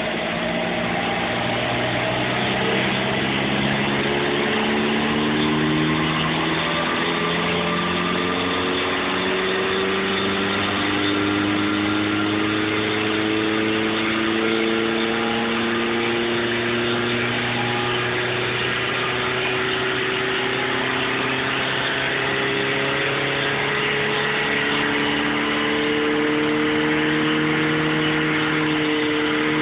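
Vauxhall Cavalier engine with a red cam cover idling steadily under an open bonnet, its pitch drifting slowly up and down.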